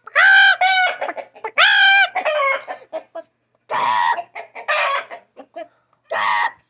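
Rooster bawking. Two loud, drawn-out bawks each run into a string of quick clucks, followed by three shorter, rougher calls over the next few seconds.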